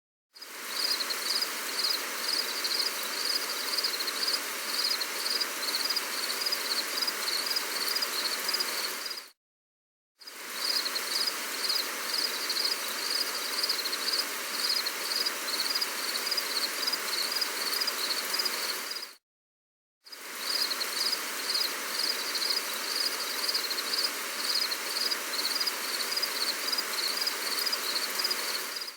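Gentle rain as a steady hiss, with a high chirp pulsing about twice a second over it. It drops to silence for about a second twice, about nine and nineteen seconds in, as the short recording loops.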